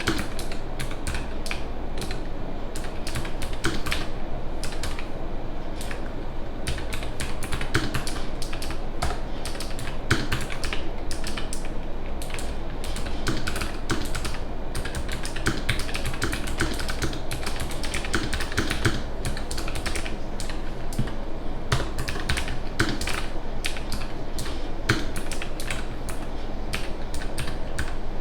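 Typing on a Nuphy Air 96 low-profile wireless mechanical keyboard: fast, continuous key clicks.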